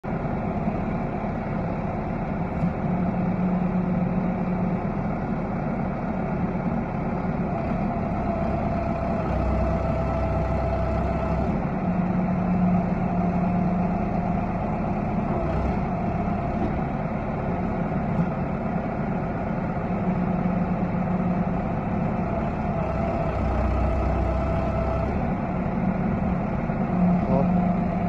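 Small backhoe loader's diesel engine running steadily while its hydraulics work the backhoe arm. The engine's low note grows heavier twice as the hydraulics take load.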